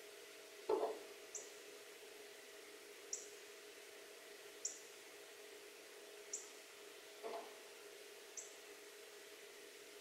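Male northern cardinal giving five short, high chip notes, one every couple of seconds. Two dull thumps on the acrylic window feeder stand out, the louder about a second in, over a faint steady hum.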